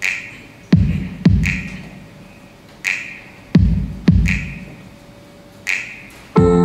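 Sparse electronic drum beat: deep kick thumps and snare hits spaced apart, each ringing out with a long reverb tail. Near the end a held keyboard chord comes in.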